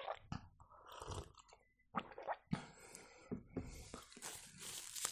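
Faint sipping and swallowing from a paper cup, then small knocks and mouth sounds as the cup is set down on a wooden table. A soft rustle builds near the end.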